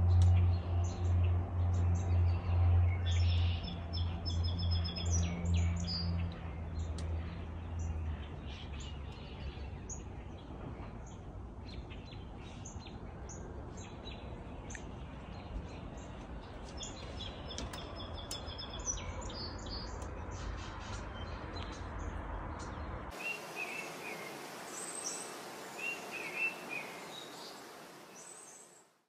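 Small songbirds chirping and singing in a morning chorus. A low steady hum sits under the first several seconds and then fades. Near the end the calls change to a different, repeated set of chirps.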